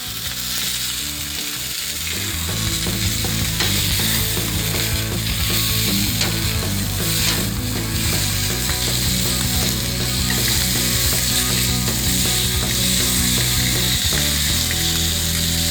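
Food sizzling and crackling on a gas barbecue's 3mm steel flat plate running hot: a dense hiss with many small pops. A low steady hum joins underneath a couple of seconds in.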